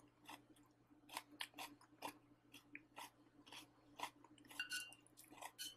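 Faint chewing of a mouthful of half-cooked spring onion: a run of soft, irregular mouth clicks and crunches. A low steady hum runs beneath.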